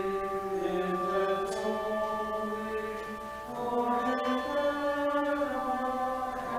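Church choir singing slow, held notes, with handbells ringing along.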